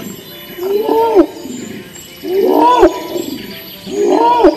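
Bornean orangutan calling: three loud calls about a second and a half apart, each rising and then falling in pitch.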